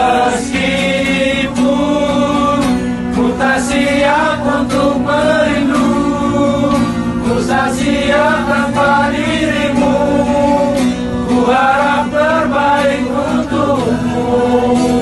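A group of men singing a song together to a strummed acoustic guitar.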